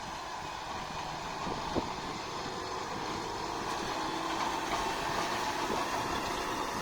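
Tractor engine running with PTO-driven hay machinery clattering steadily, growing slightly louder toward the end.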